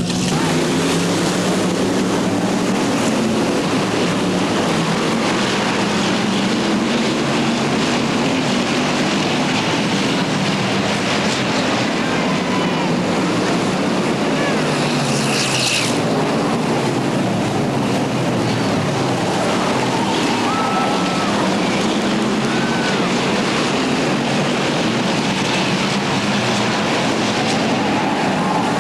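A field of stock cars racing around a short oval track: many engines run together in a steady, loud mass of engine noise whose pitch shifts as cars pass.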